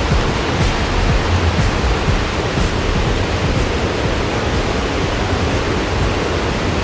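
River rapids rushing over rocks: a steady, loud hiss of white water.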